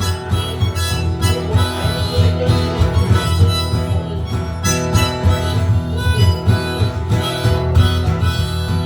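Harmonica playing an instrumental break over a strummed acoustic guitar in an old-time country song.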